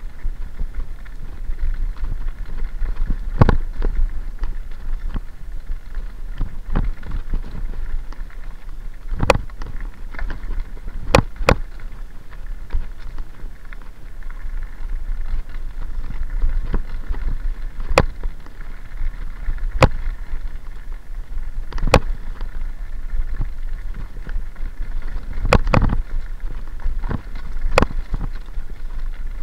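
Mountain bike rolling fast downhill on a gravel track: a steady rumble of tyres on loose stones and wind on the microphone, with about ten sharp clacks at uneven intervals as the bike jolts over bumps.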